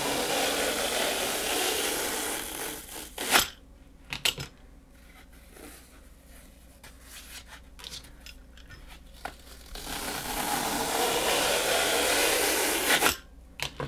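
Vegetable peeler shaving thin slices off a block of dry floral foam: a crisp scraping rasp for about three seconds ending in a sharp click, a quieter stretch with a few light crackles, then a second long scraping stroke from about ten seconds in that cuts off shortly before the end.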